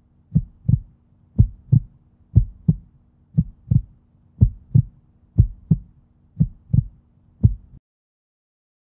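Heartbeat sound effect: pairs of low thumps, about one pair a second, over a steady low hum. The thumps and the hum stop abruptly near the end.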